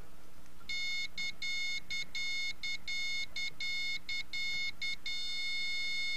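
Morse code sidetone from a 10-meter CW beacon: a high beeping tone keyed in uneven dots and dashes. From about five seconds in it is held as one steady tone as the beacon is switched into tune mode.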